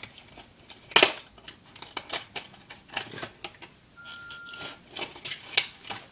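Irregular clicks, taps and rustles of small fishing tackle being handled, with a sharp click about a second in.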